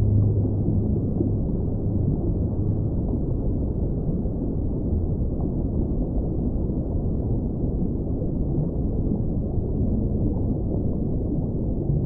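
Whale song: a low, held call with an overtone that fades out about a second in, over a steady low rushing noise.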